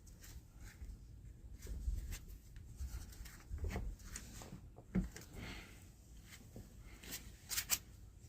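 Scattered light clicks, taps and knocks of parts and hand tools being handled during a joystick cable job, with a sharper knock about five seconds in and two quick clicks near the end.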